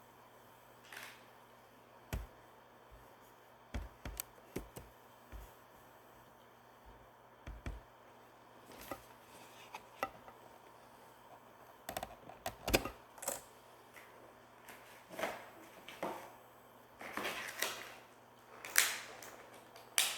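Irregular clicks, taps and light knocks of small plastic items and packaging being handled, sparse at first and busier in the second half.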